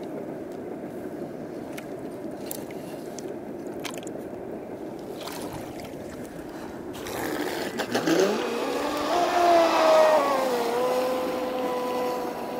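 Brushless electric motor of a radio-controlled speedboat running on a 4S LiPo battery. After about seven seconds of low background noise with a few light clicks, it spins up with a rising whine as the boat pulls away, then holds a steady high whine at speed over a hiss of water.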